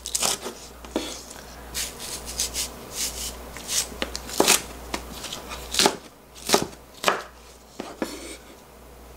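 Chef's knife chopping a Korean green onion (daepa) into large pieces on a bamboo cutting board: irregular sharp knocks of the blade hitting the wood, about one or two a second, thinning out near the end.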